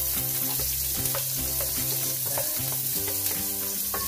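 Sliced red onions and spring onions sizzling in hot oil in a metal cooking pot, with the scrape and knock of a wooden spoon stirring them against the pot. A music track plays underneath.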